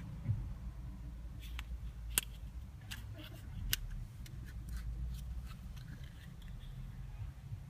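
Handling of a Kinder Surprise egg: a scatter of small sharp clicks and crinkles from the foil wrapper and plastic toy capsule being worked open by hand, over a steady low hum.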